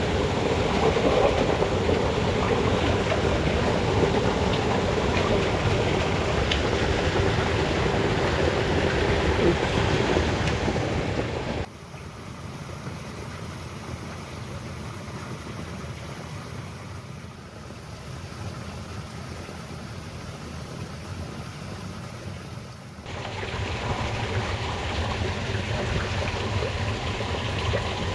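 Rushing water of a small irrigation channel, a steady noise that drops suddenly to a quieter level about 12 seconds in and comes back up about 23 seconds in.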